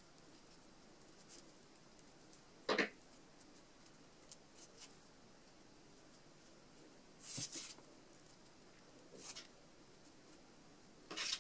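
Faint handling noise: a few brief rustles and clicks as beaded leaves and wire are moved against the beaded rose's stem, quiet in between.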